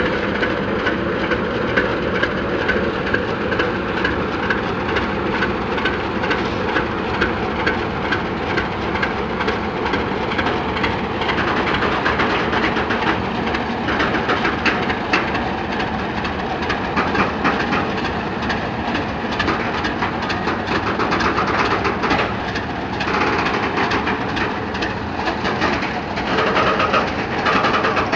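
Class 751 and 752 diesel-electric locomotives working together at the head of a loaded coal train, their diesel engines running hard as the train pulls slowly away from the station. The wheels click steadily over the track as the locomotives pass.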